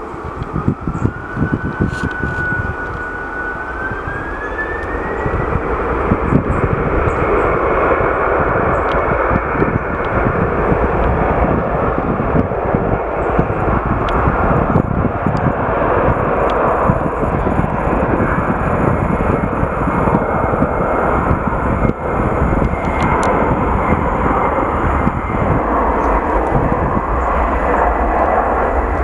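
Neos Boeing 767-300ER's twin jet engines spooling up for takeoff: a whine rising in pitch over the first few seconds as the engine noise builds, then a steady loud roar with a thin whine held above it during the takeoff roll.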